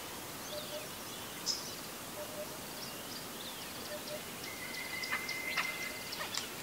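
Birds calling over a steady outdoor hiss: scattered short high chirps, some falling in pitch, and a thin whistle held for about a second and a half past the middle.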